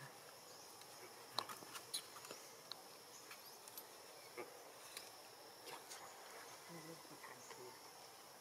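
Faint, steady, high-pitched chirring of insects, broken by scattered sharp clicks and snaps, the loudest about a second and a half in.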